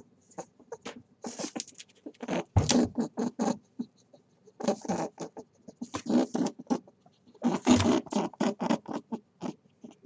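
Rabbits grazing on grass: rapid crunching and tearing as they bite and chew, in three bursts of about two seconds each. A dull thump comes about two and a half seconds in and again near eight seconds.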